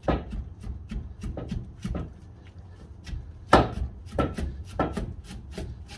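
Irregular metal knocks and clunks, about a dozen, some with a short ring, as a seized, rusted front wheel hub of a Subaru Impreza is worked loose and pulled free; the loudest knock comes about halfway through.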